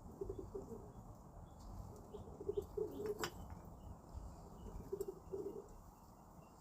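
Mourning doves fighting over bird seed: short flurries of wing flapping, with a sharp snap about three seconds in. Faint high chirping runs underneath.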